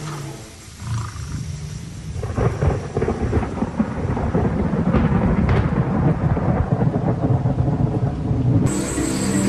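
A low, rough rumbling under a steady rain-like hiss, building after the first couple of seconds; music comes in near the end.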